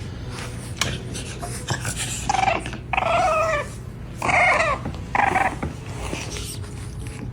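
French bulldog puppy making a string of short, gremlin-like grumbling growls and whines, about four in the middle of the stretch.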